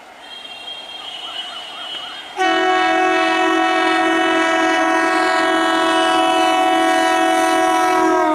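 Horn of an EMU local train, starting suddenly about two and a half seconds in and held as one long, steady, loud blast for about six seconds. Its pitch drops slightly near the end as the train passes close by.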